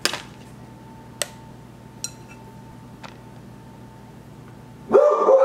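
A plastic meal-prep container set down on a glass kitchen scale with a sharp clack, followed by a few lighter plastic taps and ticks. About five seconds in, a louder, sustained sound starts.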